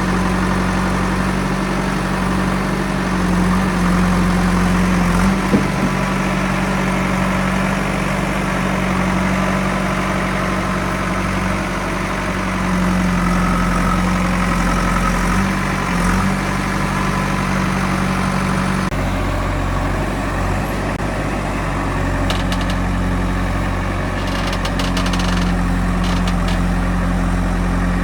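Diesel engine of a Kirloskar JCB backhoe loader running steadily, its note shifting a few times as the revs change under work. Short clicks near the end.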